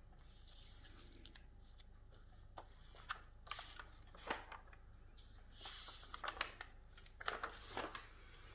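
Pages of a paperback picture book being turned by hand: faint paper rustles and light taps, starting about two and a half seconds in, with a couple of longer swishes as pages sweep over.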